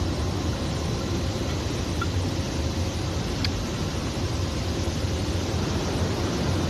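Steady low rumbling noise at an even level, with two faint short metallic pings about two seconds in and a second and a half later.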